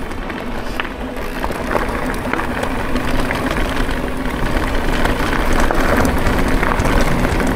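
Mountain bike tyres rolling fast over a rough trail, a dense crackle of grit and small knocks and rattles from the bike, getting louder as speed picks up.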